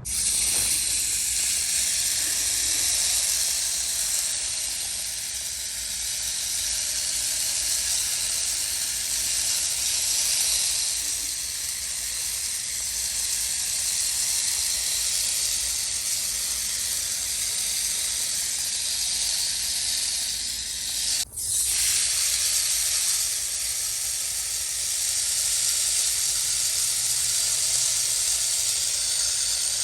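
Steady hiss of water spraying from a watering nozzle onto potted succulents, breaking off for an instant about two-thirds of the way through.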